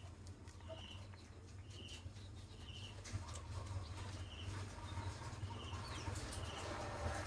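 Faint animal calls: short high chirps about once a second over a low steady hum, growing busier toward the end.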